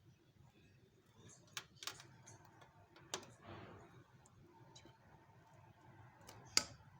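Faint, scattered clicks and taps of a spoon against a pan, with a soft scrape, as a thick cooked coconut and gram-flour mixture is spooned into a greased square pan and spread out. There are about four sharp clicks, the loudest near the end.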